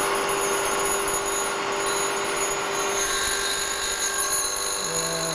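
Bridgeport mill spindle running a slitting saw that is fed by hand into an aluminum part, cutting a narrow slot. It gives a steady machine hum and whine with a few constant tones.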